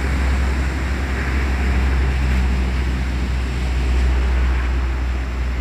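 Steady low rumble of a bus's engine running.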